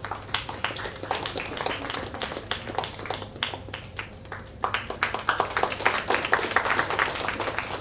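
Audience applause, many hands clapping irregularly, lighter at first and growing louder and denser a little past halfway.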